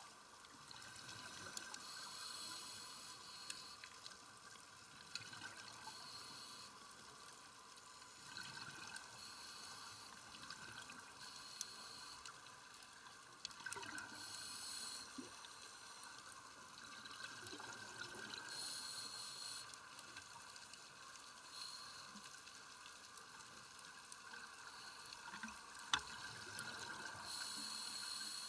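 Scuba regulator exhaust bubbles heard underwater, bubbling in bursts every few seconds with a diver's exhalations over a steady underwater hiss. A single sharp click near the end.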